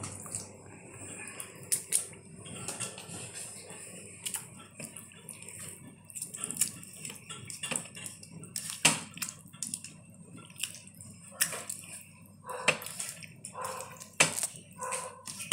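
A hand squelching pieces of pork neck through a thin, herb-filled marinade in a stainless steel bowl: irregular wet slaps and squishes, with small knocks against the bowl.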